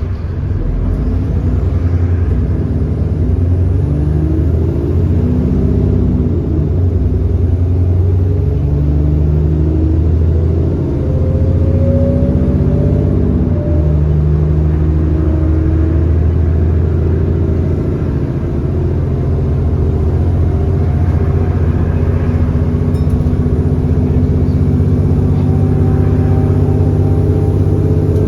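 Cummins ISB 6.7-litre diesel engine of an Alexander Dennis Enviro400 bus, pulling under acceleration with an exhaust leak. Its pitch climbs and drops back at automatic gear changes about 6 and 13 seconds in, then holds fairly steady.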